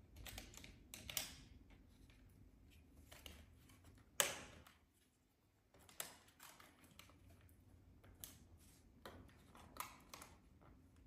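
Faint, scattered clicks and taps of small plastic and metal parts being handled as retaining springs are fitted into a Mercedes-Benz W140 rear view mirror's frame. The sharpest click comes about four seconds in.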